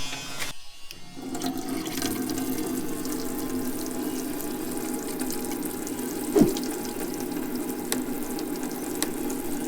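Water running from a tap into a small sink, fed by a small electric water pump. The flow starts about a second in and stays steady, with a single knock about six and a half seconds in.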